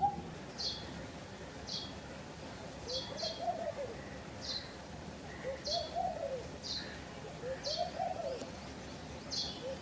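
A dove cooing, each coo a low call that rises then falls over about a second, repeated four times at roughly two-second intervals. Over it, a small bird gives short high downward chirps about once a second.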